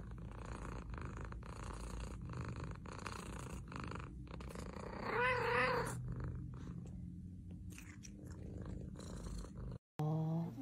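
Domestic cat purring steadily while its head is stroked, a sign of contentment. About five seconds in, a short wavering meow rises over the purr.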